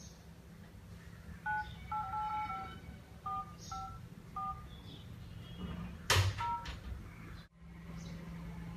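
Touch-tone phone keypad beeping as a number is dialled: about seven short key beeps in a quick, uneven run, then a short burst of noise and one more beep.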